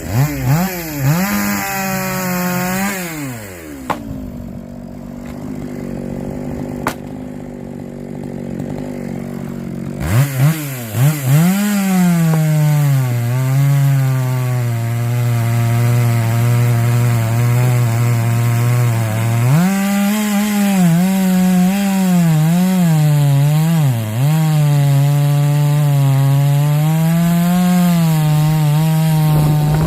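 Chainsaw engine running: it eases off for several seconds, revs up sharply about ten seconds in, holds high and steady, then dips and recovers repeatedly as it cuts through wood.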